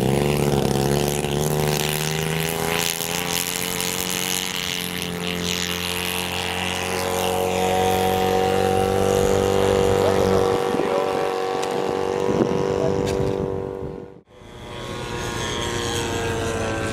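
Engine of a radio-controlled scale model airplane running steadily under power as it takes off and flies. After a sudden break about fourteen seconds in, the engines of a twin-engine scale model warplane running on the ground.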